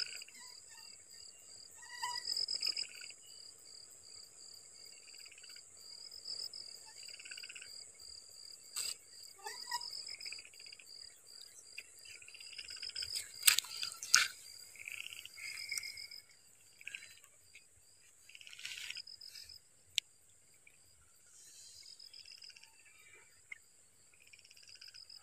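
Crickets and other night insects chirping in a steady pulsing high trill over a higher hiss. A few sharp clicks stand out, the loudest two about halfway through.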